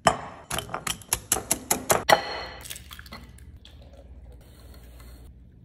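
A utensil clicking rapidly against a glass mixing bowl, about nine sharp strikes in two seconds. Then a soft, steady pour of liquid from a measuring cup into the batter.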